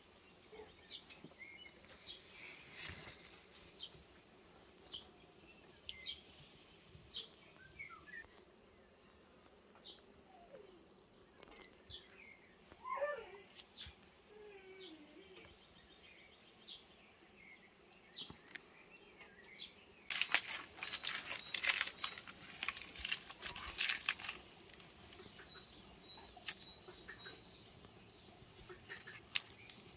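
Birds chirping now and then over faint outdoor ambience, with one longer wavering call about halfway through. About two-thirds of the way in come a few seconds of dense rustling and crackling.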